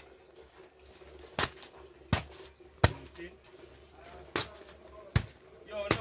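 A steel shovel blade chopping down into paper cement bags lying on gravel, splitting them open: five sharp strikes, the first three quickly one after another and two more near the end.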